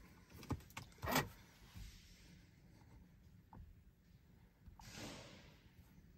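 Quiet car interior with a few light clicks, the sharpest about a second in, and a brief soft rustle near five seconds, from handling a handheld diagnostic scanner tablet.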